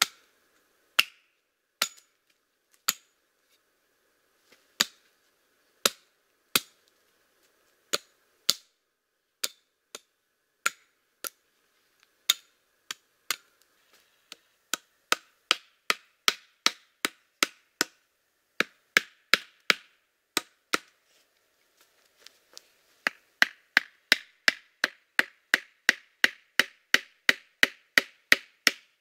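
Hatchet striking the tops of wooden stakes, driving them into the ground: sharp wooden knocks, about one a second at first, then quicker runs of two to three blows a second in the second half.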